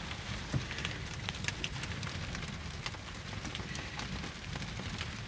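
A boat's cast-iron wood stove burning, with scattered, irregular crackles and ticks over a low steady rumble.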